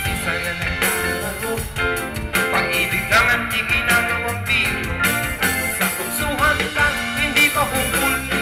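Live band music with two male vocalists singing into microphones, amplified through a stage sound system.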